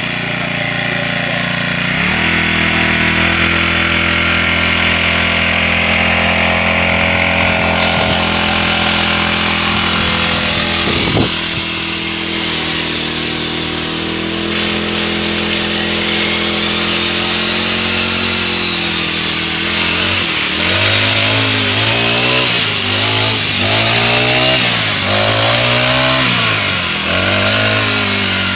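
Four-stroke Mollar brush cutter (rice and grass cutter) engine running at steady speed, picking up speed about two seconds in. Near the end the throttle is worked repeatedly, the engine revving up and dropping back about once a second.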